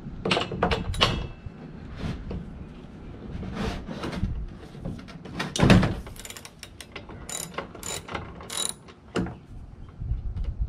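Socket wrench clicking and scraping as a spark plug is loosened and unscrewed from a leaf blower's two-stroke engine, with irregular metal clicks, a louder knock about halfway through, and sharp metallic clinks as the socket and plug are handled.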